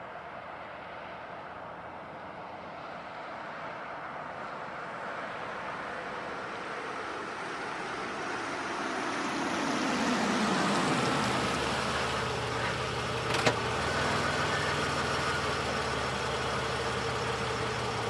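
1991 Oldsmobile Cutlass approaching and growing louder, its engine note falling as it slows about ten seconds in, then idling steadily. A single sharp click comes during the idle.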